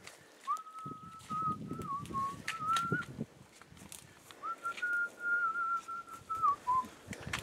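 A person whistling a slow tune in long held notes, in two phrases of a couple of seconds each with a pause between. Scattered clicks and scuffs of boots and trekking poles on rocky ground.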